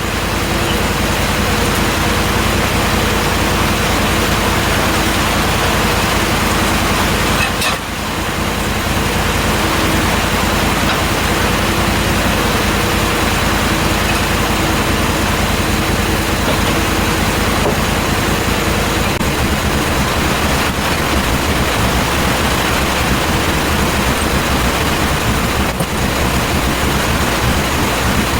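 Gas engine of a portable bandsaw mill running steadily under load as the band blade cuts the live edge off a hard (sugar) maple log, with a brief dip in loudness about eight seconds in.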